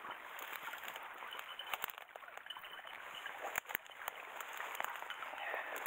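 Dry grass and brush rustling and crackling as someone pushes through it on foot, with scattered sharp clicks and knocks from footsteps and gear.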